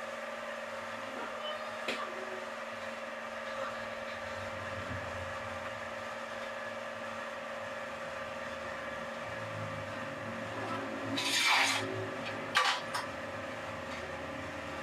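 Manual rail tile cutter scoring a floor tile: one short rasping scratch of the scoring wheel about eleven seconds in, then a sharp crack or two as the tile is snapped. A steady hum runs underneath.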